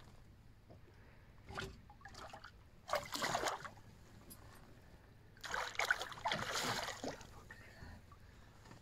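Water splashing as a hooked pollack is taken by hand at the boat's side: a short splash about a second and a half in, a louder one around three seconds in, and a longer spell of splashing in the second half.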